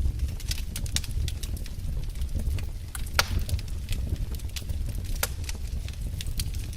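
Wood fire burning in a fireplace: irregular crackles and pops over a low rumble, with two sharper pops about three and five seconds in.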